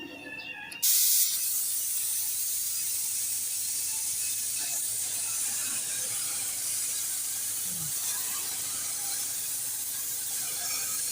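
Compressed-air paint spray gun spraying: a steady, loud hiss that starts abruptly about a second in when the trigger is pulled.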